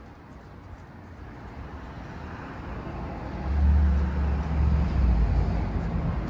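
City road traffic, with a motor vehicle's low engine rumble swelling about halfway through as it passes.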